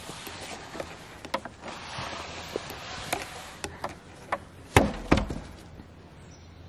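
A large frame of pressure-treated lumber being walked upright through dry straw, rustling with small knocks of wood, then tipped over to land flat on the ground with two heavy thuds about five seconds in.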